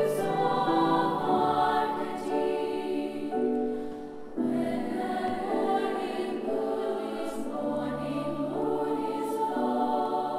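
Girls' choir singing slow, held notes together; one phrase ends about four seconds in and the next begins straight after.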